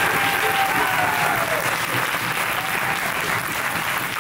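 A room full of people applauding, with a few voices calling out over the clapping in the first second or so; the applause eases off slightly toward the end.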